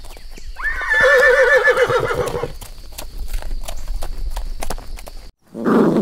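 A horse neighs once, a shaky whinny of about two seconds with a quavering pitch, over a steady clip-clop of hooves. Near the end the sound cuts off abruptly and a dog's voice begins.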